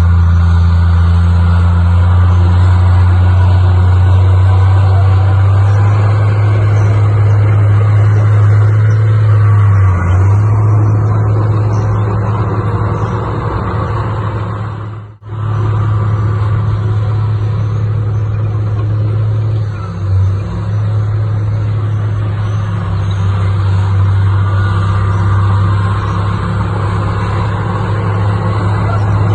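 Heavy diesel engine of earthmoving machinery running steadily with a deep, even drone; about halfway through the sound drops out for a moment and then carries on.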